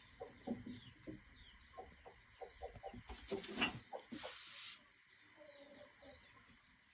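Close mouth sounds of eating rice and nettle curry: irregular chewing and lip-smacking, with two short airy rushing sounds about three and four seconds in. Faint bird chirps in the background.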